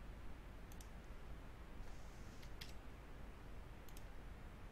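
Computer mouse button clicks: a few sharp clicks, some in quick pairs, about a second in, midway and near the end, over faint steady microphone hiss.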